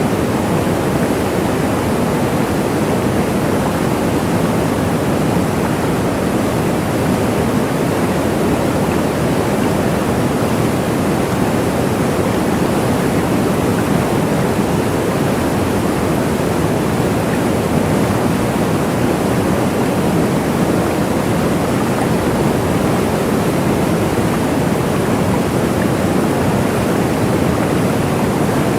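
Waterfall: water falling and splashing in a steady, unbroken rush, strongest in the low and middle range.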